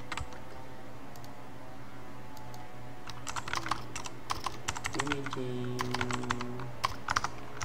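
Computer keyboard typing: a single click near the start, then a quick run of keystrokes in the second half.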